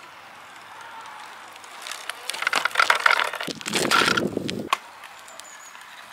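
DYU T1 folding e-bike being ridden and stopped on pavement: tyre and brake noise. A faint steady hiss gives way, about two seconds in, to a run of loud rough bursts lasting nearly three seconds, then fades back to the faint hiss.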